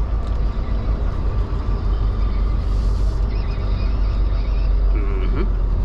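Volvo semi truck's diesel engine running steadily at low speed as the rig turns through a lot, heard from inside the cab. A short hiss of air comes about two and a half seconds in.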